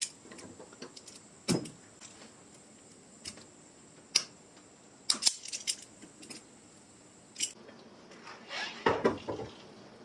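Metal clicks and clinks of pliers working a part at the handle pivot of a hand-lever button press: single sharp ticks every second or so, then a busier run of clinks near the end.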